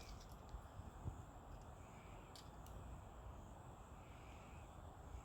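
Near silence: faint outdoor background hiss and low rumble, with a few faint ticks.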